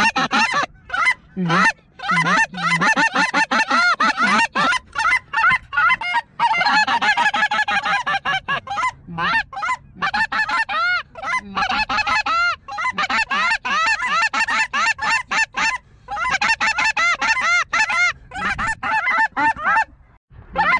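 A large flock of snow geese calling together: a dense, loud chorus of many overlapping high-pitched honks, with a few brief breaks.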